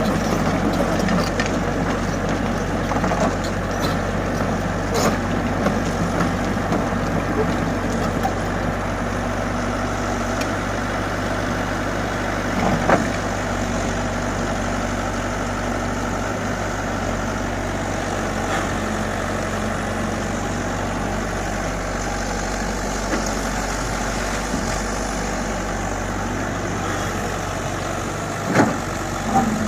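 Komatsu excavator's diesel engine running steadily as it digs sand, with a few short knocks, one about halfway through and a couple near the end.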